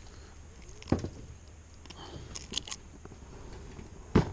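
Close handling noise as a caught largemouth bass is unhooked by hand: faint rustling and crackling, with two sharp knocks, one about a second in and a louder one near the end.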